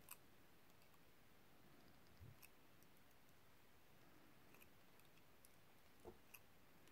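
Near silence with a few faint, scattered clicks and light taps of thin silver-plated copper wire being handled and bent.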